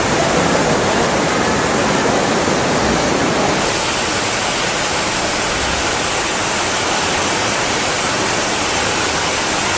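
Loud, steady rushing of floodwater, a dense even roar with a brighter hiss joining about three and a half seconds in.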